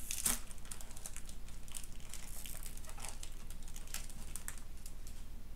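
Foil wrapper of a Pokémon card booster pack crinkling as it is held open and the cards are pulled out: a run of short crackles, the sharpest about a third of a second in.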